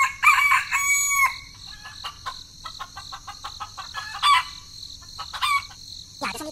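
A rooster crows in long, level-pitched calls during the first second or so, then chickens cluck in short, sharp calls. A steady high-pitched hum runs underneath.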